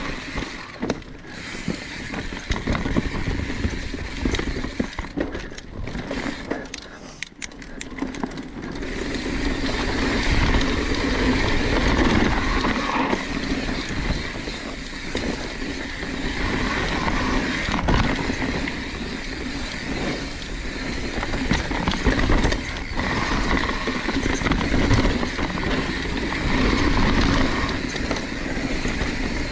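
Mountain bike riding down a steep dirt trail: continuous tyre and ride noise, with knocks and rattles from the bike over roots and bumps. It goes quieter for a few seconds about five seconds in, then louder again.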